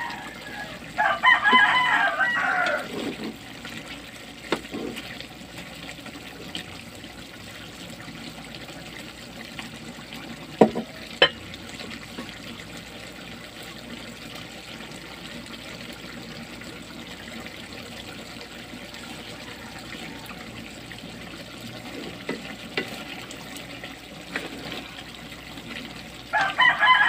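Pork and sauce simmering in a pan with a steady bubbling hiss. A rooster crows loudly about a second in and again at the very end. Two sharp knocks come close together in the middle.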